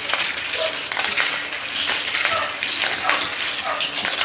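Plastic Hot Wheels wall track pieces clicking and rattling in a dense, uneven run of small clicks.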